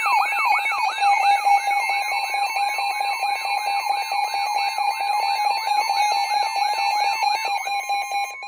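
Emergency alert attention signal: a steady electronic alarm tone layered with a repeating falling siren-like sweep, about three sweeps a second. The sweeps stop near the end while the steady tone carries on.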